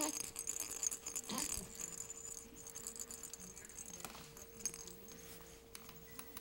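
Six-week-old baby making a brief soft coo about a second and a half in, then faint quiet vocal sounds, over light rustling and clicks and a faint steady hum.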